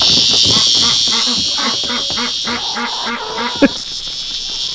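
A duck quacking in a quick, even series, about four quacks a second, over a steady, high insect drone. A single sharp knock comes near the end.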